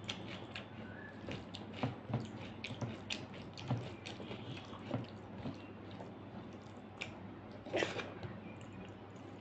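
A person eating rice and dal with the fingers: wet chewing and smacking clicks, with squishing as the hand mixes rice, lentil soup and mashed beans on the plate. There is a louder wet smack near the end as a handful goes into the mouth.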